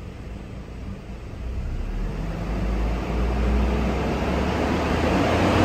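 2008 Hummer H3's 3.7-litre inline-five engine, heard from the driver's seat, being revved slowly up from idle and getting steadily louder.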